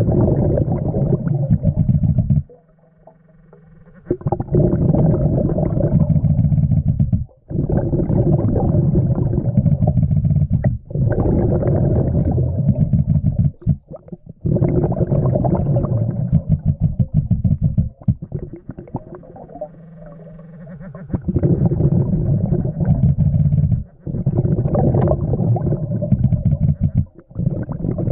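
Underwater bubbling and gurgling of a diver's exhaled breath. It comes in long rumbling bursts of a few seconds each, broken by short pauses, the longest about two seconds in.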